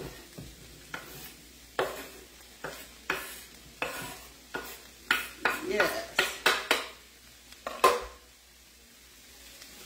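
A knife scraping chopped bell pepper, onion and jalapeño off a wooden cutting board into a skillet: a run of irregular scrapes and knocks against the board and pan, busiest in the middle and stopping near the end. Faint sizzling from the hot, bacon-greased pan lies under it.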